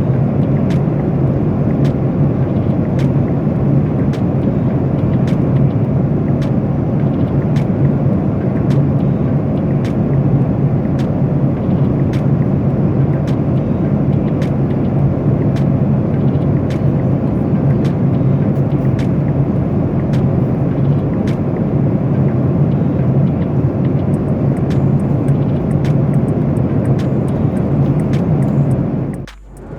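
Steady cabin noise inside a Boeing 737-8 airliner: engine and airflow noise with a deep hum and faint regular ticking. It cuts off abruptly just before the end.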